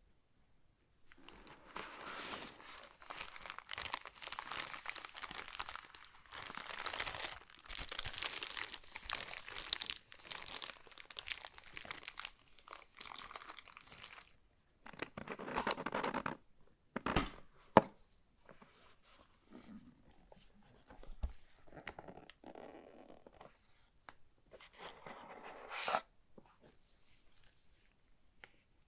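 Packaging of a gaming keyboard being opened by hand: long stretches of crinkling and tearing of the wrapping, then shorter rustles broken by a few sharp knocks as the box and parts are handled.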